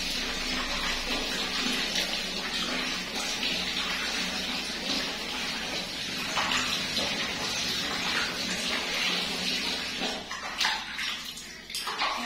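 Tap water pouring steadily from a wall faucet, splashing over a baby monkey and into a plastic basin of water below. The splashing turns more uneven, with a few short splashes, near the end.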